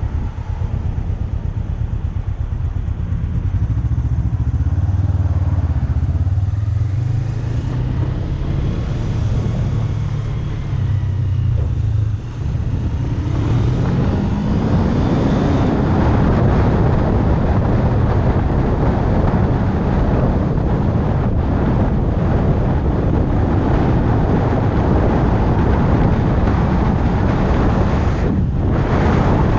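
Suzuki motorcycle engine running at low speed, then accelerating with a rising pitch about 13 seconds in. After that, heavy wind rush on the microphone at cruising speed covers much of the engine.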